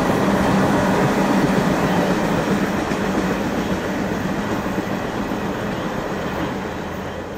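CSX freight train rolling away down the track, a dense rumble of wheels and cars with a steady low hum, slowly fading.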